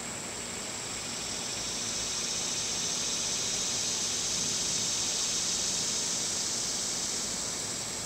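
Summer insects buzzing: a steady high buzz, with a second, lower buzz that swells up about a second in and dies away near the end.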